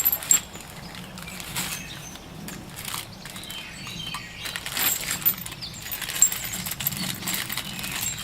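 Scattered clicks, taps and rustles of small suspension hardware and its packaging being handled: polyurethane bushings, bolts and bags.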